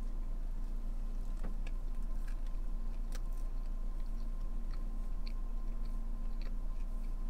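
A person biting into a soft-tortilla chicken burrito and chewing it, with small scattered mouth clicks, over a steady low hum.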